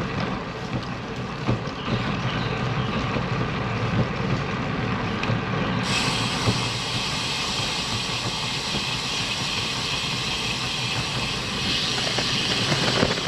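Road bike rolling along a jointed concrete path: steady tyre and wind noise on the helmet camera's microphone, with a few light clicks as the tyres cross the slab joints. The hiss turns brighter about halfway through.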